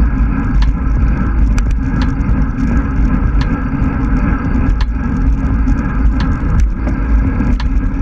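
Wind and road noise on a camera riding on a moving road bike: a loud, steady low rumble with scattered sharp clicks.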